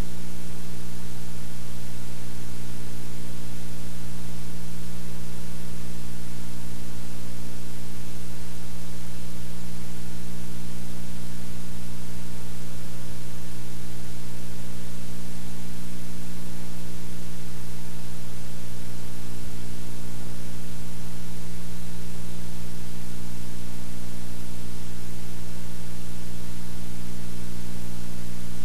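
Steady loud hiss with a low electrical hum underneath, unchanging throughout, with no other sound: the noise floor of a blank stretch of videotape.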